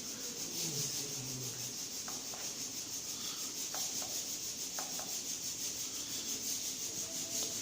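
Steady hiss of R134a refrigerant gas flowing through the charging hose into a refrigerator's sealed system while it is being gas-charged, with a few faint clicks.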